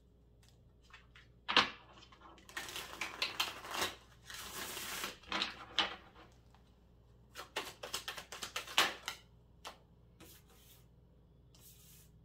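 Tarot deck shuffled by hand: a sharp tap, then several seconds of dense rustling and clicking as the cards slide through each other, then a quick run of card snaps and a few light taps as cards are laid on the table near the end.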